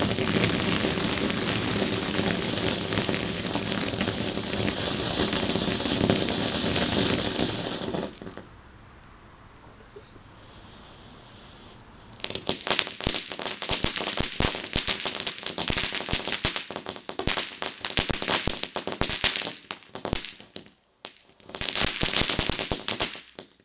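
Firework ground fountains burning: a loud, steady hiss of spraying sparks for about eight seconds, then a quieter hiss. About twelve seconds in, a fountain starts crackling densely and keeps on until the sound cuts off suddenly near the end.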